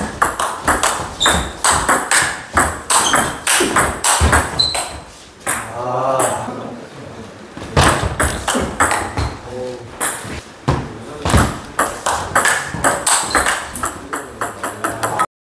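Table tennis rallies: the ball clicks off the paddles and the table in quick succession. A brief voice comes in about six seconds in, between two rallies, and the sound cuts off abruptly near the end.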